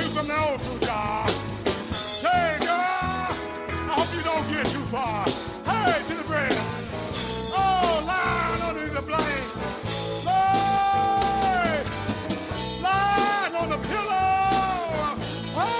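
Live blues band playing an instrumental passage: a lead line of bent notes and long held notes over a steady bass and drum groove, the longest held notes coming near the two-thirds mark.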